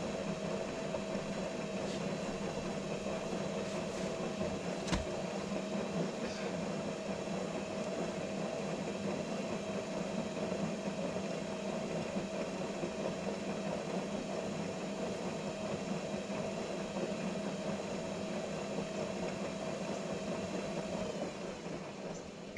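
Hotpoint WMA40 front-loading washing machine in its heated wash, the motor turning the drum fast in a spin wash: a steady hum with a constant whine. There is a single click about five seconds in, and the sound eases off near the end.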